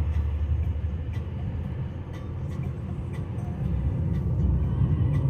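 Steady low rumble of a car on the move, heard from inside the cabin: engine and tyre road noise, a little louder in the second half.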